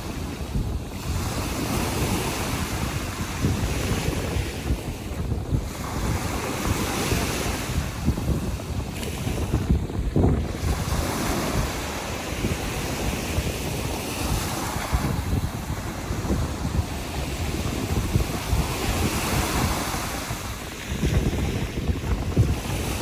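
Baltic Sea surf breaking and washing on the shore in a steady rush that swells and eases every few seconds, with wind buffeting the microphone.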